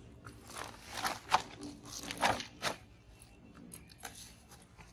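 Hands handling fishing-bait containers: a few short scraping, crunching noises from the steel bait bowl and woven plastic sack, the sharpest about a second in.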